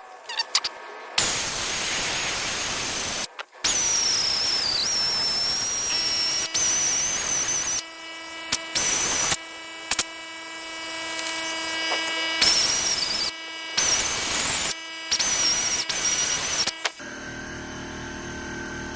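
Air-powered die grinder with a carbide burr porting a Volvo Redblock cylinder head, the burr worked lightly at the port edge. It runs in repeated bursts of a few seconds with short pauses: a high whine over the hiss of the air exhaust. The grinder stops about two seconds before the end.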